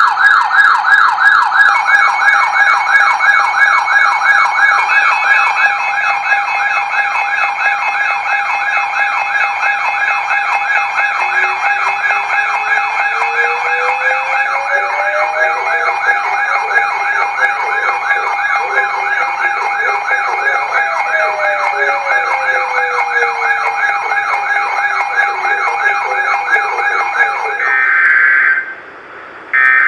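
Electronic warning siren sounding a rapid warble, its pitch sweeping up and down several times a second over a steady higher tone, then cutting off abruptly near the end. A fainter, slower tone rises and falls underneath in the middle, and short bursts of higher tones follow the cutoff.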